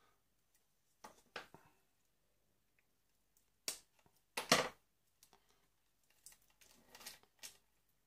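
Scissors and a bundle of jumper wires being handled: scattered short clicks and rustles, the loudest a brief one about four and a half seconds in, with a run of smaller ones near the end.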